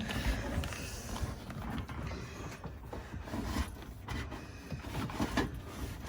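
A heavy electrical cable being pulled and fed through a passage under the trailer, scraping and rustling unevenly with a few soft knocks.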